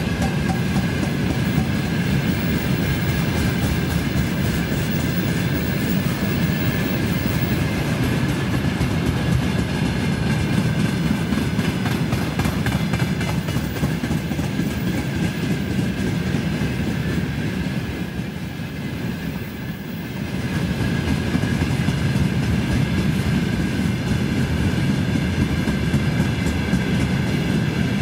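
Freight train of railway tank cars rolling past: a steady low rumble of wagons with a constant fine clatter of wheels over the rails and a thin steady high ringing note above it. It eases briefly about two-thirds of the way through, then comes back up.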